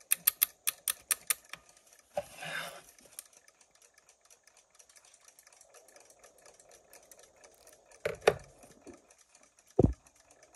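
A Westclox Big Ben loud-alarm clock being wound: a quick run of loud ratchet clicks from the winding key, about six a second for a second and a half. Faint ticking of the movement follows, with a couple of knocks as the clock is handled and set down; the movement ticks only briefly before stopping, a sign that it needs servicing.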